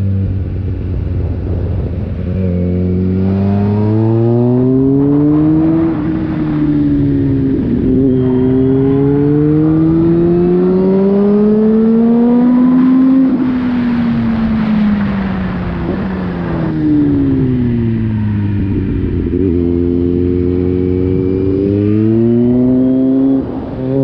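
Car engine under way, its pitch climbing under acceleration and dropping suddenly at gear changes about six and eight seconds in. It then winds down as the car slows, and climbs again with a sudden step up near the end.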